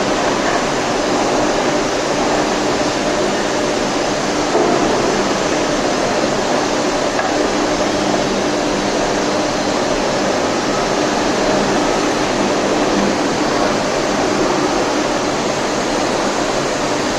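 Electric arc furnace melting steel: the arcs give a loud, steady, dense noise with a faint steady hum running through it.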